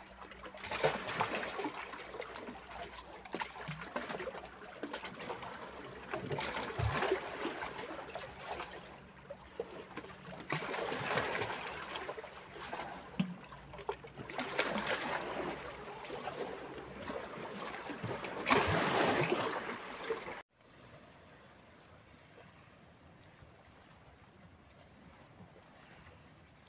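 Seawater washing in and out among rocks at the waterline, trickling and splashing, with surges every few seconds. The loudest surge comes just before it cuts off suddenly about three-quarters of the way through. What follows is a faint, steady hiss of calm sea.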